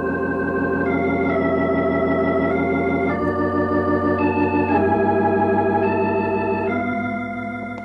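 Organ music bridge between scenes of a radio drama: a slow run of held chords, changing every second or so, fading away near the end.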